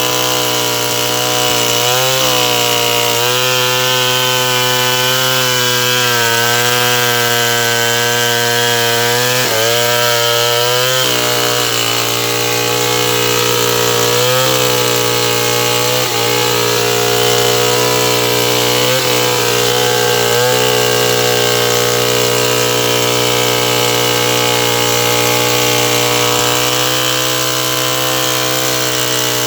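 Stihl 070 two-stroke chainsaw running steadily at high revs through sengon wood, its pitch dipping briefly several times as it bogs under load.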